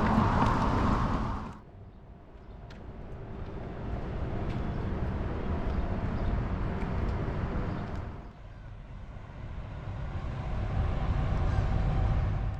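Road traffic: motor vehicles running past. The sound drops away suddenly about a second and a half in, then swells and fades and swells again as vehicles go by.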